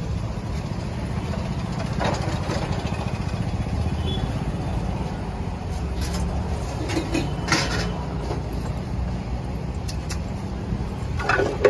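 Steady low rumble of street traffic, with a few short clicks and knocks now and then.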